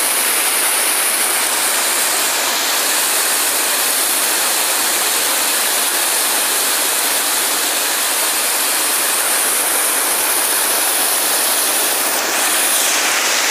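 Flowing river water rushing steadily and loudly, an even unbroken roar of current.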